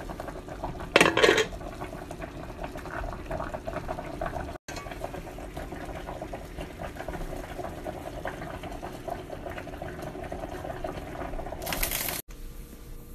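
Baked bean and chicken sauce bubbling and simmering steadily in a skillet, with a louder clatter about a second in and a short louder hiss near the end.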